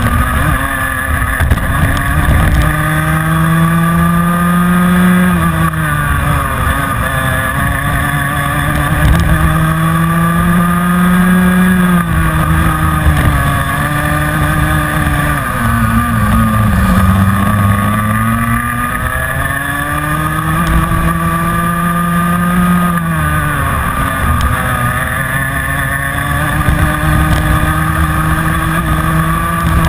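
Rotax Mini Max 125cc two-stroke kart engine at racing speed, heard from on board the kart. Its pitch climbs along each straight and drops three times as the driver lifts off for corners, the longest dip near the middle.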